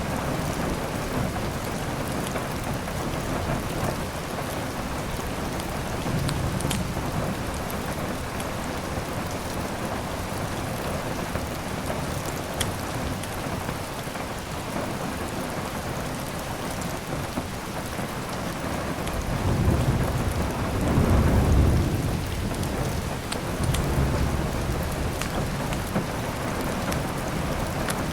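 Steady rain with a low thunder rumble that swells about two-thirds of the way in, and a few sharp crackles of a wood fire.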